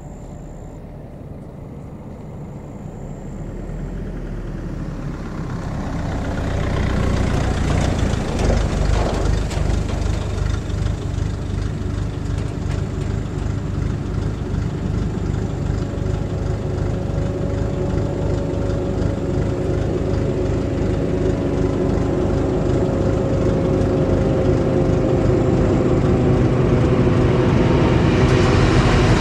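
Truck engine pulling up close and then idling steadily. In the last seconds the sound grows louder as a train approaches.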